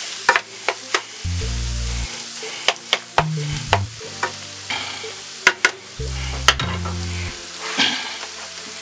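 Cubed raw chicken breast sizzling in a skillet with onion and celery, stirred with a wooden spatula that taps and scrapes against the pan now and then. Deep bass notes of background music come and go over it.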